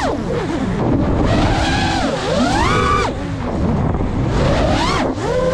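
FPV quadcopter motors and propellers whining, the pitch dropping and climbing several times as the throttle is cut and punched, with wind rushing over the microphone.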